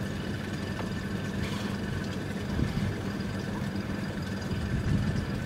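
Small fishing boat's engine idling, an even, steady hum.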